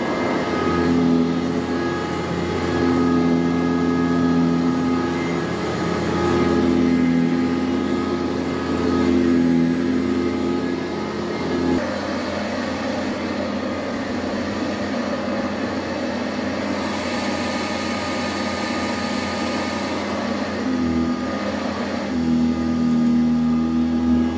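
A Eureka commercial upright vacuum cleaner running on carpet, its motor humming steadily and wavering in pitch as it is pushed back and forth. About halfway through, the sound turns airier and more hissing, and the hum comes back near the end.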